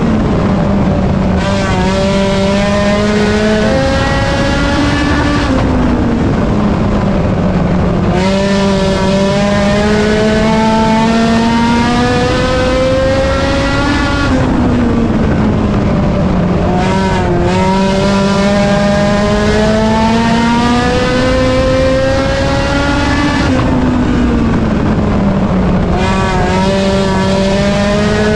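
A race car's engine running hard on laps, its revs climbing steadily for several seconds and then dropping back, about every 8 to 9 seconds: full throttle on each straight, lifting for each turn.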